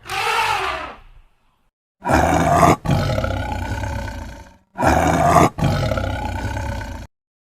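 A large farm animal calling: a short call, then two long, loud, drawn-out calls, each broken once by a brief gap.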